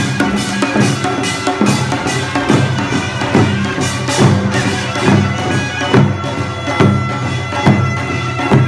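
Traditional Korean instrumental music: a loud wind instrument plays held, nasal-toned notes over a steady drum beat struck about once a second.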